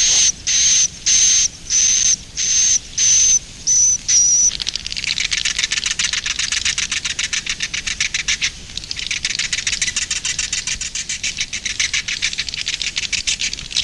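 Edible-nest swiftlet 'inap' (roosting) call: short buzzy chirps about twice a second, each with a high whistled note. After about four seconds these give way to a continuous rapid clicking twitter, which dips briefly in the middle and then resumes.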